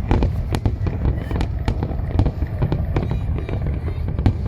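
Fireworks display going off: a rapid, irregular string of sharp bangs and crackles, several a second, over a continuous low rumble of distant bursts.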